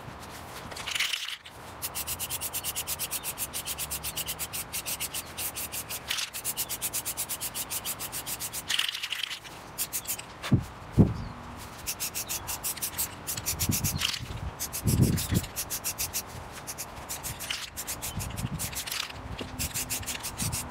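Aerosol spray-paint can spraying black paint in passes of a few seconds, a hiss that pulses fast and evenly, with short breaks between passes. A few low thuds come around the middle.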